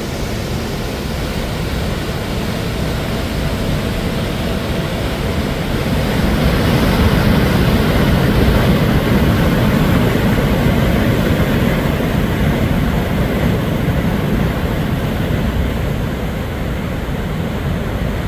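Steady rushing roar of the Sheep River Falls waterfall close by. It swells louder about a third of the way in and eases off slightly toward the end.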